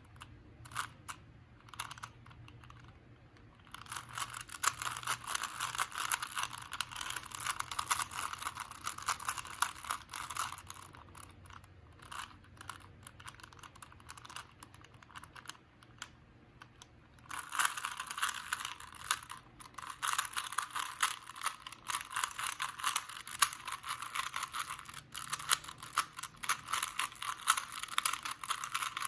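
Plastic Rubik's cube being twisted quickly by hand, a rapid clatter of small clicks from the turning layers. It comes in two long busy runs, with only scattered clicks for a few seconds at the start and again in the middle.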